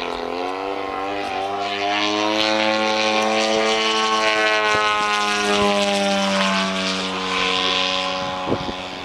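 Radio-controlled model airplane's engine and propeller running in flight, one steady buzzing tone. The pitch climbs over the first couple of seconds, holds, and eases a little lower near the end.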